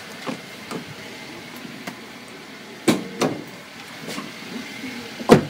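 A Daihatsu Xenia's bonnet being released and opened: a few sharp knocks and clunks, the loudest near the end.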